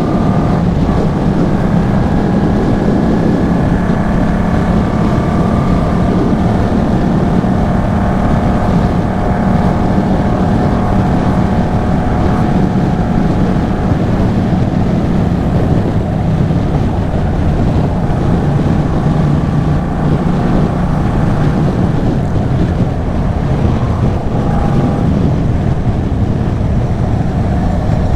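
Yamaha MT-07's 689 cc parallel-twin engine through an aftermarket Arashi exhaust, running at a fairly steady pitch while riding, with wind rushing over the microphone.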